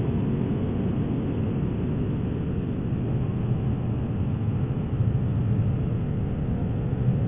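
Steady low rumble of a motorcycle riding in traffic, engine and wind noise heard through a helmet intercom mic, heaviest in the low end and without change.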